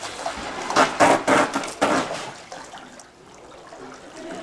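Swimming-pool water splashing as people swim, with a run of louder splashes about one to two seconds in, then quieter water sounds.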